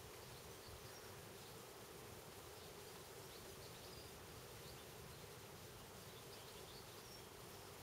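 Faint, steady insect buzzing, with a few faint high chirps scattered through it.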